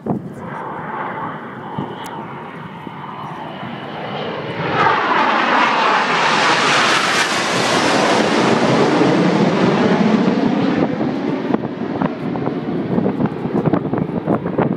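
Red Arrows' BAE Hawk jets passing low overhead. The jet noise swells about four seconds in, holds loud with a sweeping rise-and-fall shimmer as they go over, then fades. Wind buffets the microphone near the end.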